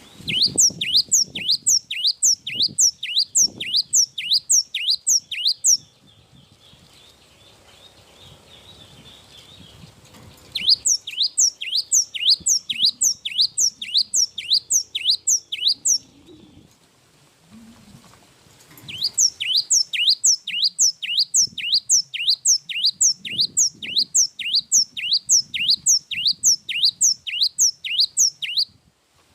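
Gelatik wingko (cinereous tit) singing: long runs of sharp, high notes that each sweep quickly downward, about three a second. Three runs, the last the longest, with short pauses between.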